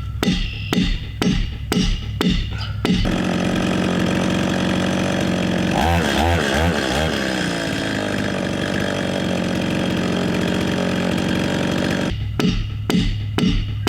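Stihl two-stroke chainsaw revving in short bursts about twice a second, then held at full throttle in a long steady cut, its pitch dipping briefly under load midway, then revving in short bursts again near the end.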